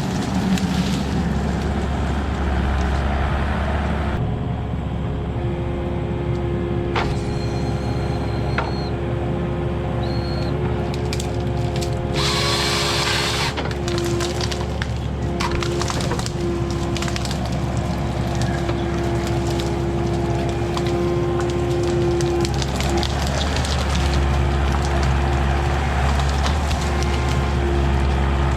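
Diesel engine of heavy land-clearing machinery running steadily, with a whine that breaks off and comes back, while brush and branches crack and splinter. About twelve seconds in comes a loud rushing burst lasting about a second and a half.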